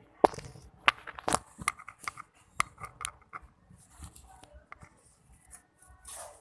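A quick run of sharp clicks and taps from hands handling the slime-making containers and utensils, loudest in the first second and a half, with a short rustle near the end.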